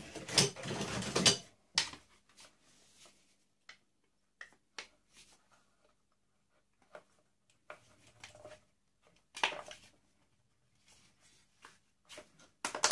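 Hard plastic housing parts of an industrial vacuum cleaner's motor head being handled and pulled apart: a loud clatter and scrape in the first second and a half, then scattered clicks and knocks, another rattle about nine and a half seconds in, and a sharp click near the end.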